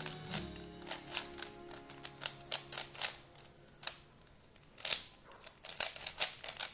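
Plastic 3x3x3 Rubik's cube being turned fast in a speed solve: quick irregular runs of clicks and clacks as the layers snap round, with a short lull in the middle and a dense flurry near the end. Background music plays under it.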